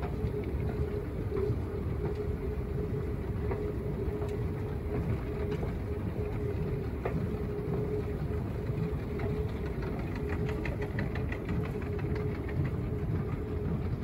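Steady low mechanical rumble with a constant hum, scattered light clicks, and a rapid run of ticks from about ten to twelve seconds in.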